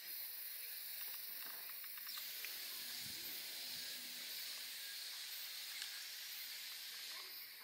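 Indian rhinoceros chewing a mouthful of cut grass, with a few soft crunches in the first couple of seconds, over a steady hiss of background noise.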